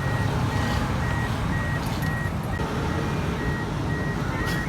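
Steady low rumble of a vehicle and traffic, with a short high electronic beep repeating about three times a second. Rising chirps start near the end.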